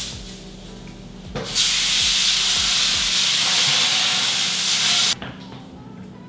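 A loud, steady hiss that starts about a second and a half in, lasts nearly four seconds and cuts off suddenly.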